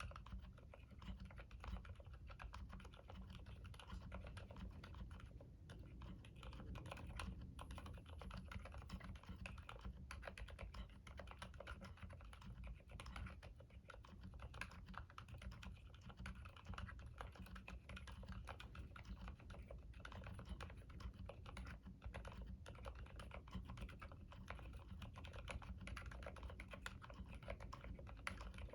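Continuous typing on a mechanical keyboard with Gateron silent black linear switches under OEM profile keycaps, its keystrokes coming as soft, damped clicks at an irregular typing pace.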